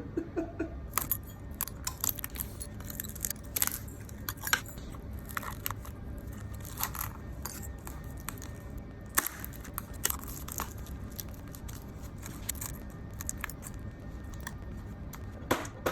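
Broken back glass being scraped and chipped off an iPhone 11 Pro Max: irregular sharp clicks and crackles of glass fragments breaking away, over a low steady hum.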